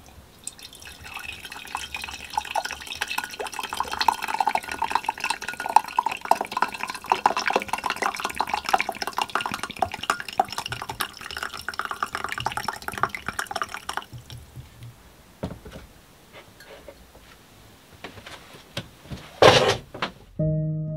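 Coffee poured from a carafe into a ceramic mug: a steady splashing trickle that stops about fourteen seconds in. A few light clicks follow, then one short sharp knock, and music notes begin at the very end.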